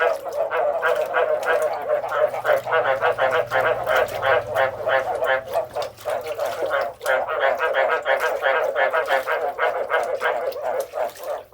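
A chorus of frogs calling: fast, pulsed croaks from several frogs overlapping without a break.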